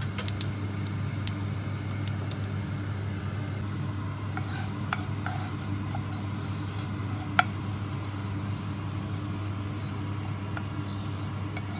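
Cumin seeds in hot olive oil in a pot, stirred and scraped around the pan with a wooden spatula, giving a light rasping sizzle with scattered crackles and ticks and one sharp click about seven seconds in. A steady low hum runs underneath.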